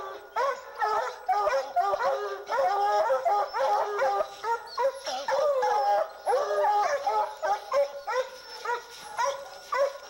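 A pack of Treeing Walker hounds baying together at the foot of a tree, many barks and drawn-out bawls overlapping without a break. This is the treed bark that tells the hunters the mountain lion is up the tree.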